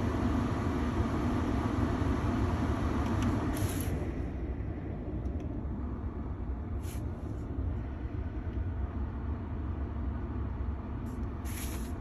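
Ford Maverick's HVAC blower running, a steady rush of air from the vents in the cab. About four seconds in, after a faint click, the rush gets quieter and duller as the defrost is shut off and the airflow shifts to the main front vents.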